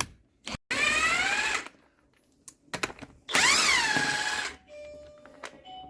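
Air impact gun spinning the already-loosened wheel nuts off a Land Rover Discovery 2's front wheel: two bursts of about a second each, a whine that rises in pitch as the gun spins up, without hammering. A few light clicks come between the bursts.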